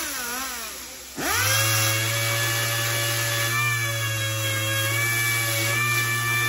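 Air-powered dual-action sander running free. Its whine drops and fades in the first second as the trigger is let off, then the sander is triggered again a little after a second in and runs at a steady whine.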